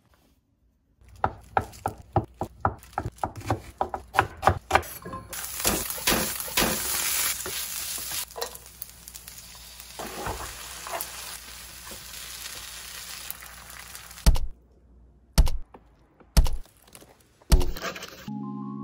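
Rice frying in a pan, sizzling and stirred with a wooden spatula, after a quick run of sharp taps, about four or five a second. A few loud single knocks near the end.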